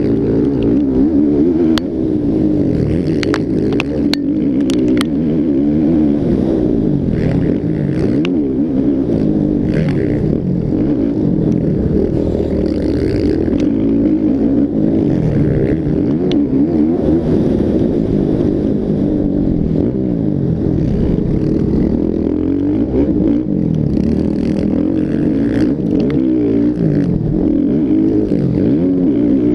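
Several motocross bikes' engines revving on the track, overlapping, their pitch rising and falling constantly as the riders open and close the throttle and shift.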